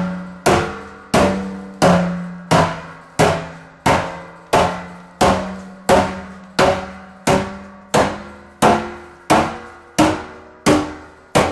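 Sledgehammer pounding the top of a steel oil drum in a steady rhythm, about three blows every two seconds. Each blow is a sharp metallic bang with a short pitched ring. This is sinking the drumhead into a concave bowl, the first stage of making a steel pan.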